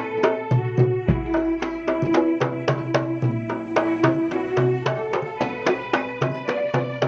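Jidor pencak silat music: drums struck in a fast, even rhythm of about four to five strokes a second over held low melody notes, with a deep bass drum boom about a second in.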